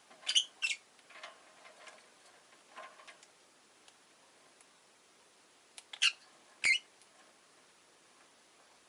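Rosy-faced lovebird giving short, sharp chirps: a quick pair near the start, a few softer chirps after, and another loud pair about six seconds in.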